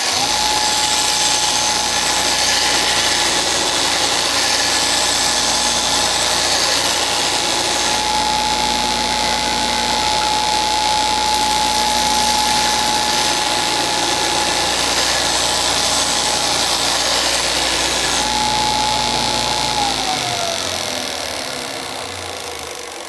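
Porter-Cable stationary belt-and-disc sander switched on and running with a steady whine while the steel axe head is ground against its belt. About 20 seconds in it is switched off, and the whine falls away as the motor winds down.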